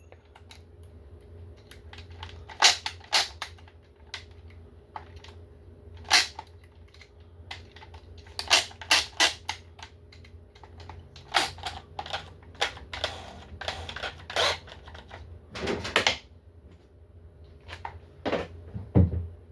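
Irregular clicks and knocks, some in quick clusters, as a carrying handle and its bolts are handled and fitted against a kayak hull, over a faint steady low hum.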